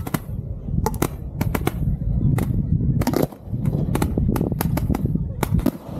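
Fireworks being fired at close range from within the firing site: a rapid, irregular run of sharp shots and bangs over a steady low rumble, with two brief lulls, about three seconds in and near the end.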